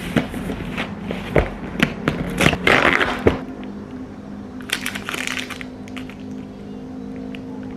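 A cardboard box of protein bars handled and opened with a few sharp knocks, then the plastic wrapper of a single bar crinkling in the hands as it is turned over, with two crackly bursts of rustling.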